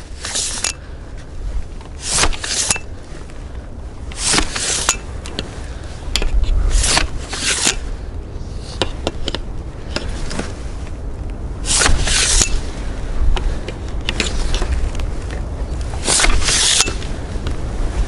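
A long-handled pole pruner working in a bare cherry tree's crown: an irregular series of short snips, scrapes and twig rustles, each under a second, with a few sharp clicks and a low rumble underneath.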